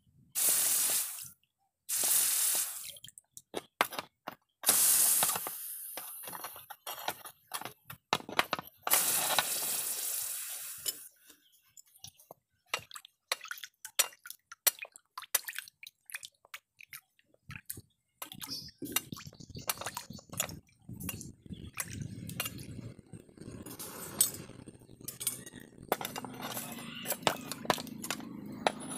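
Hot forged steel chopper blade quenched in a tub of water: several loud bursts of hissing sizzle as it is plunged in, then crackling and bubbling, with water sloshing toward the end.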